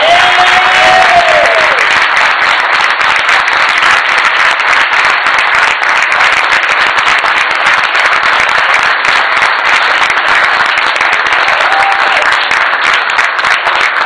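Audience applauding: dense, steady clapping that lasts the whole stretch, with a brief voice rising over it at the start.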